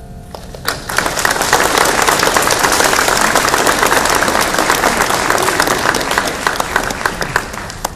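Audience applauding, swelling about a second in and holding until it dies away near the end; the last held keyboard chord fades out just as it begins.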